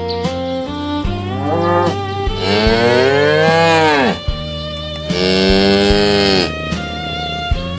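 Cattle mooing: two long moos about a second apart, each rising and then falling in pitch, over background music.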